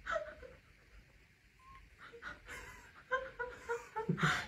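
Cat giving short, quiet chirping calls: one at the start, then a quick run of chirps, several a second, from about three seconds in.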